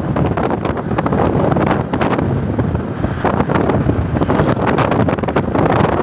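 Wind buffeting a phone's microphone from a moving vehicle, in rapid gusts over a steady road and engine rumble.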